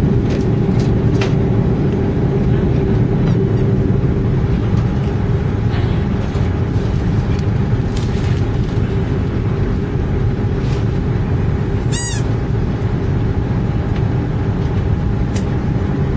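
Steady drone inside an Airbus A320 cabin on the ground, its engines and air conditioning running, with a constant hum under it. A short high squeak sounds once about twelve seconds in.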